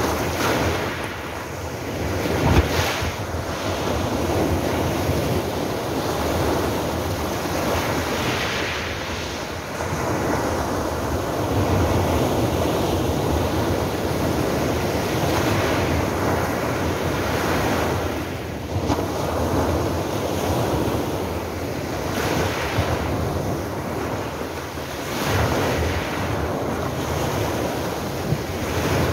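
Small sea waves breaking close by and washing up over a pebble beach. The surf hiss swells and ebbs every few seconds as each wave comes in.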